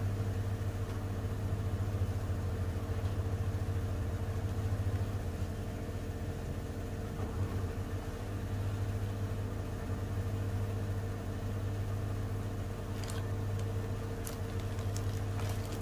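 Panasonic NA-V10FX2LVT 10 kg inverter front-loading washing machine spinning at high speed, set to 1,200 rpm. It gives a steady hum that eases a little about five seconds in and then returns, with a few faint ticks near the end. The machine stays balanced, with little shaking.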